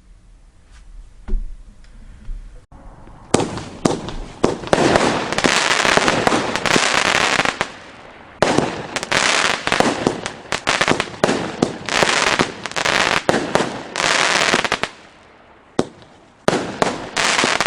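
A 200-gram, 25-shot consumer firework cake firing. After a quiet start, from about three seconds in it sends off a rapid series of sharp bangs with long stretches of dense hiss and crackle between them, eases briefly near the end, then gives more sharp reports.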